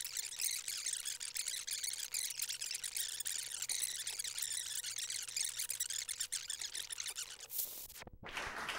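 Crackling static hiss from a damaged videotape playback, with a faint steady tone and low hum beneath it. The noise cuts out briefly near the end.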